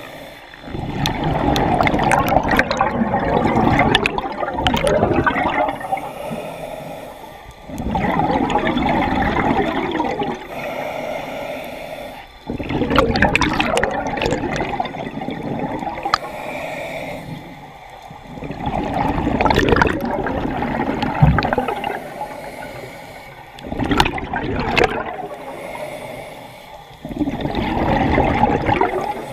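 Scuba regulator breathing underwater: exhaled bubbles rush and gurgle past the camera in long swells every five seconds or so, with quieter spells between breaths.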